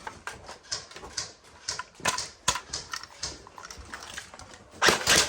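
Scattered sharp snaps of airsoft gunfire, irregularly spaced, with a louder, denser burst near the end.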